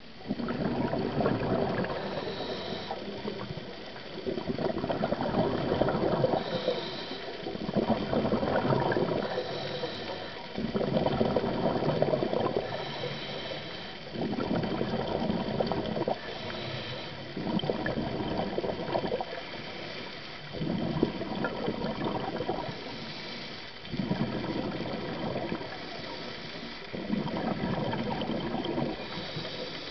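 A scuba regulator breathing, heard underwater: a long burst of exhaled bubbles about every three seconds, with a short hiss from each inhale between the bursts.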